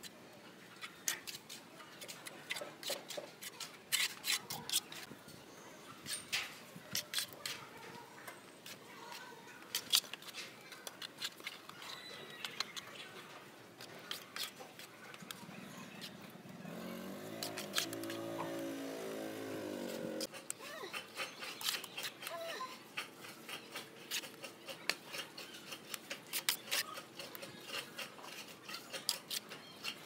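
Small steel hand trowel scraping and tapping wet cement mortar on a concrete wall ledge: a steady run of short scrapes and clicks. For a few seconds past the middle a pitched call or voice in the background rises over it.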